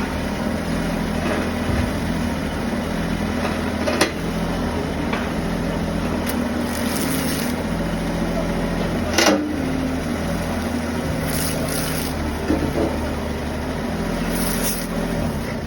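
Kubota mini excavator's diesel engine running steadily, its note shifting slightly up and down. There is a light knock about four seconds in and a louder knock about nine seconds in.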